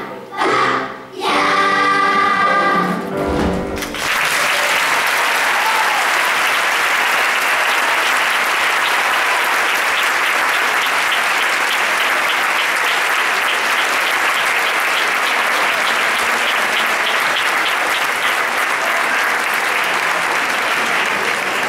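Children's choir singing the last phrases of a song, with a held final chord that cuts off about four seconds in. An audience then applauds steadily.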